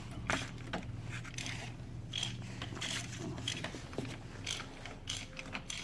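Hand tools working on the engine: a socket ratchet clicking in irregular runs, with metal clinks and scrapes, as the new mechanical fuel pump is bolted onto a 1971 VW Beetle's air-cooled engine.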